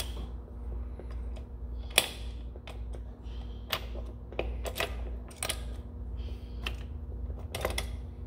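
Steel gears and shifter parts of a Peerless 2300 four-speed transaxle clinking and clicking as they are slid onto their shafts and set into the case by hand. The clicks come irregularly, the sharpest about two seconds in.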